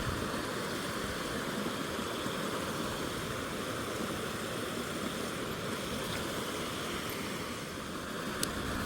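Mountain stream water running steadily, with one sharp click near the end.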